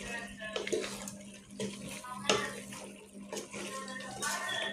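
A hand squishing and mixing chicken pieces with potato, carrot, tomato and wet spice paste in a pot: irregular wet squelching and rustling, with a louder click a little past halfway.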